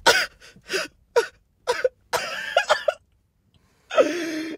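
A man crying in short gasping sobs, with a drawn-out wail near the end.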